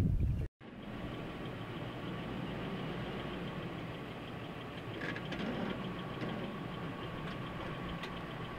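Ford 4x4 pickup truck's engine idling steadily as the truck is eased back toward a boat trailer's hitch.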